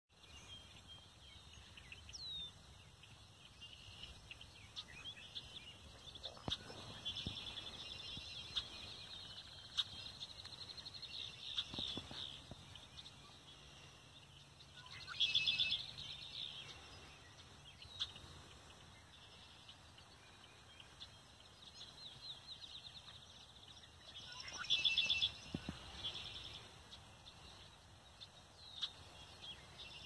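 Red-winged blackbird singing, with two loud trilled songs about 15 and 25 seconds in, among softer chirps and calls.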